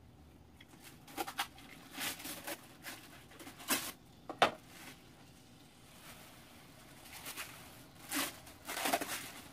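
Plastic wrapping crinkling and rustling in short irregular bursts as packaged tteokgalbi patties are peeled out and laid in a frying pan, with one sharp knock near the middle.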